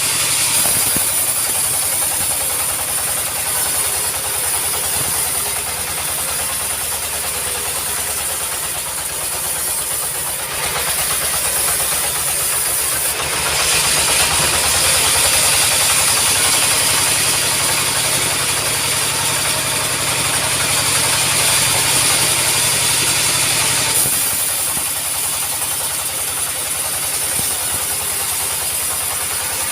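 Sawmill machinery running steadily with an engine drone. It grows louder and hissier for about ten seconds in the middle.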